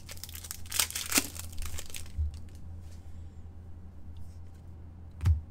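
Foil hockey card pack torn open and its wrapper crinkled, busiest in the first two seconds and quieter after, with a dull thump near the end.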